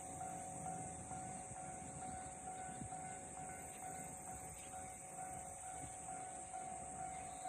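Japanese railway level-crossing warning bell ringing in a steady, evenly repeating pattern, over a low rumble.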